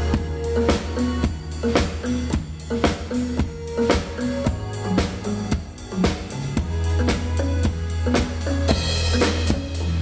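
Acoustic drum kit played in a steady groove of bass drum, snare and cymbal strokes over a pitched backing track with a deep bass line. A brighter cymbal wash comes in near the end.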